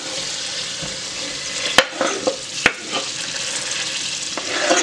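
Diced onion sizzling in melted butter in a stainless steel pot, a steady hiss. Two sharp knocks, about two seconds in and again a second later, as the wooden cutting board taps against the pot.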